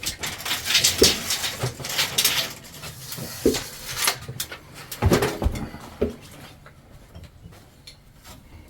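Work handling noises from drywall work: a stretch of scraping in the first couple of seconds, then several separate knocks and short rough sounds, growing quiet over the last couple of seconds.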